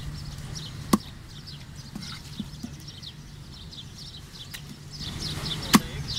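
Large curved cleaver chopping through fish onto a wooden chopping block: a few sharp knocks, one about a second in and two close together near the end, with a fainter one before them.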